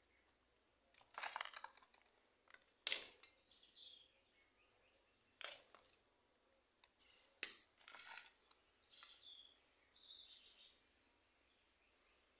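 Scissors and the pieces of a dismantled firework rocket clicking and scraping on a tile floor in several separate short knocks, the loudest about three seconds in. Faint bird chirps and a steady faint high whine sit behind.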